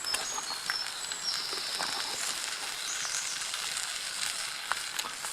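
Eggs sizzling in a frying pan, with scattered small pops, while birds sing in short high phrases in the background.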